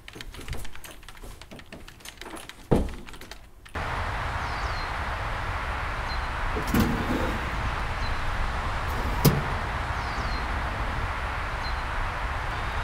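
A door clunks shut, then steady outdoor background noise comes in, with two clunks of a mailbox lid being opened and shut and a few faint high chirps.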